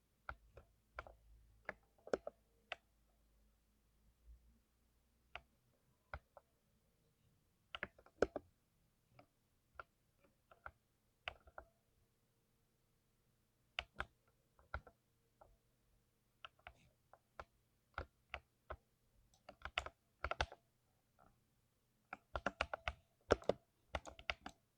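Typing on a lubed 60% mechanical keyboard: separate keystrokes at an uneven pace, with quicker flurries of several keys at a time near the middle and towards the end.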